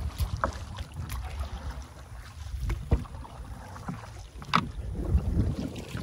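A cast net being hauled up out of the river into a small wooden canoe. There is a low rumble of wind on the microphone and of handling noise, with a few sharp knocks; the loudest come about three seconds in and again a second and a half later.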